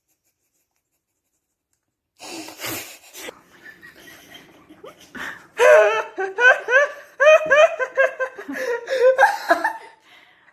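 A person laughing hard in a quick run of loud, breathy 'ha' bursts, each rising in pitch, starting about halfway in after some two seconds of dead silence and a stretch of breathy noise.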